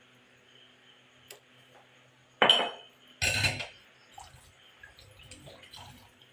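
Spoon and glass jar being handled: two sharp clinks or knocks about two and a half and three seconds in, followed by a few faint taps.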